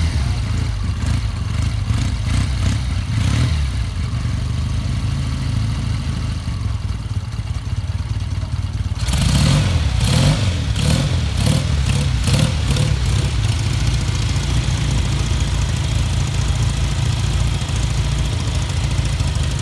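Motorcycle engines idling. About halfway through, the sound gets suddenly louder, with a run of quick throttle blips for a few seconds before it settles back to a steady idle.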